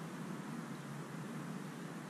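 Steady outdoor background noise: an even hiss with a low hum and no distinct events.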